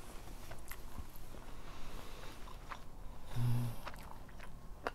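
Close-miked chewing of a mouthful of food, with small wet mouth clicks throughout and a brief low hum about three and a half seconds in.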